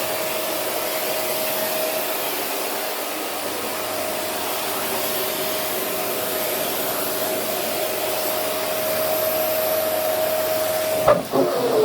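Vacuum cleaner running steadily, a rushing hiss with a thin steady whine, as it sucks at a down jacket. About eleven seconds in there is a click and the motor's pitch falls.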